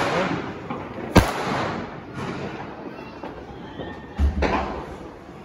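Diwali firecrackers going off in the street: a sharp bang about a second in, the loudest, then a second bang with a deep thump about four seconds in.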